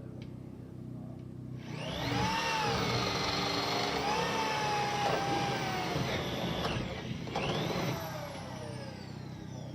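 Electric drill boring through wood with a large auger bit. About two seconds in it grows much louder as the bit cuts, the motor's pitch sagging and recovering under load, then it eases off near the end with the pitch falling.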